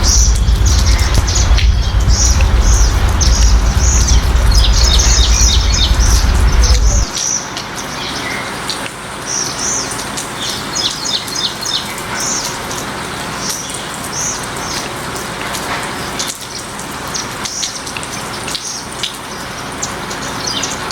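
Steady rain falling, with small birds chirping again and again, some in quick rattling series. For about the first seven seconds a loud low rumble sits under it, then cuts off suddenly.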